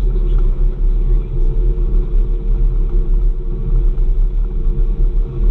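Snowmobile trail groomer's engine running steadily under way, a low rumble with a constant hum over it, heard from inside the cab.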